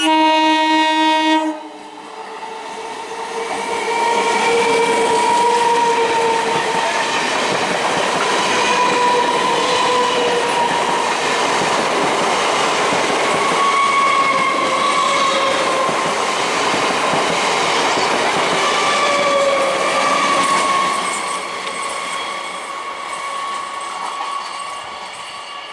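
Train horn gives one loud blast of about a second and a half, then a train passes close by: a loud rushing clatter of wheels on rail with whining tones drifting over it, easing off over the last few seconds.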